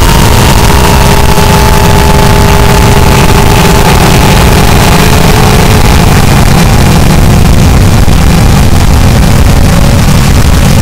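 Harsh noise music: a loud, dense wall of distorted electronic noise, heavy in the low end, with a few faint held tones that slowly sink in pitch.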